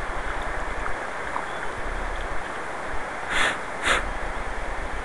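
Steady rush of river current and wind on the microphone, with two short breathy hisses about half a second apart some three and a half seconds in.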